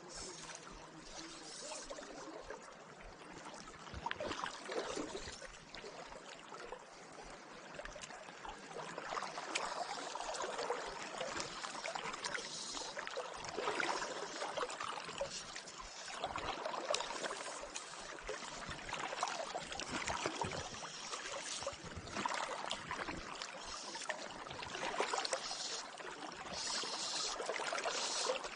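River current running and lapping close by, rising and falling unevenly in loudness.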